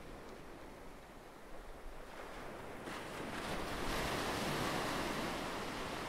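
Sea waves washing, a steady rush of water noise that swells louder about halfway through.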